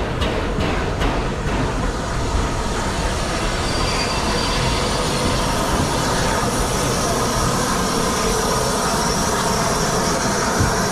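Steam locomotive 35028 Clan Line, a Bulleid Merchant Navy class 4-6-2, close by with a steady dense hiss and rumble and a few faint steady tones. A few sharp clicks come in the first two seconds.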